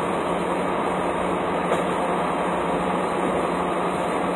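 Steady mechanical drone with a constant low hum from a semi truck at a diesel fuel pump while it is being fuelled.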